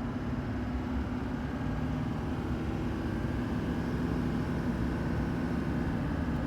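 Steady cabin noise inside a Chevy Duramax diesel pickup at highway speed: engine and road rumble with a hiss of wind. The hiss is the annoying wind noise beside the driver's ear that the owner is trying to fix.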